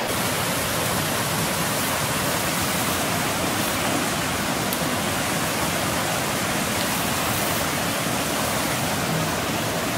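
Steady rushing of a shallow stream running over rocks, an even hiss with no break or change.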